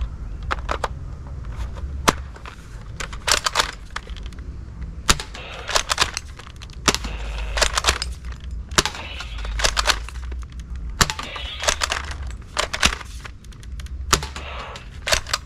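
Toy M16 sniper rifle clicking and snapping in quick clusters as it is worked and fired, over a low rumble.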